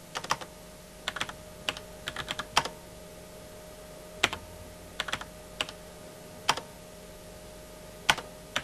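Keys pressed on a beige desktop computer keyboard: irregular clicky keystrokes, some in quick runs of two to four and some single, with pauses between. A faint steady hum lies beneath.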